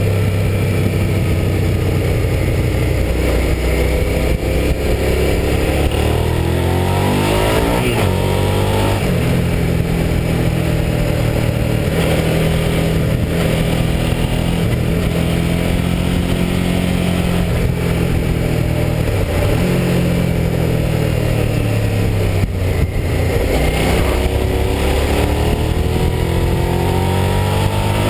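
Motorcycle engine heard from behind the windscreen over steady wind noise. The revs climb, drop sharply at a gear change, hold steady through the middle, dip, then climb again near the end.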